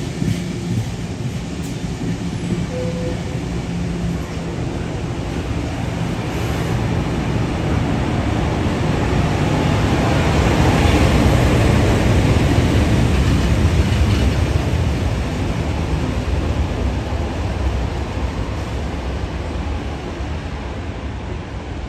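A train passing, its running noise growing louder to a peak about halfway through and then fading away.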